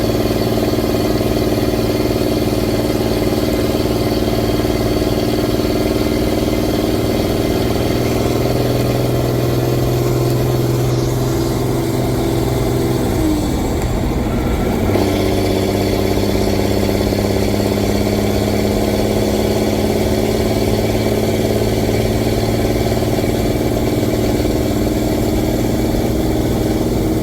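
M35A2 deuce and a half's multifuel inline-six diesel running steadily under way. About halfway through the engine note breaks for a moment, then settles at a lower pitch.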